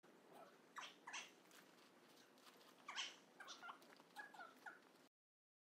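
Faint high calls of a small animal: a few quick falling chirps, then a run of short squeaky calls in the second half, which stop suddenly.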